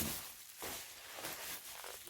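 Rustling and handling noises as packaging and a laptop are unpacked, with a sharp click at the start.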